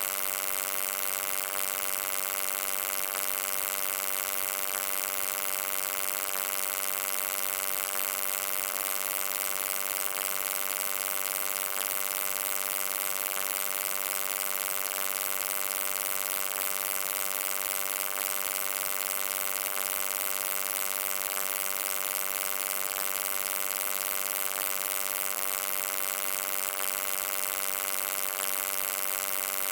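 Steady electric hum: a buzzing drone with many overtones and a layer of bright hiss above it, unchanging in pitch and level.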